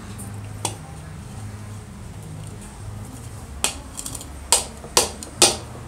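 Hard clicks and knocks of a plastic PVC pipe ring being handled and pressed onto a turned wooden piece, and the wooden piece set down on a hard stone worktop: one click about half a second in, then a run of sharper knocks in the last two and a half seconds.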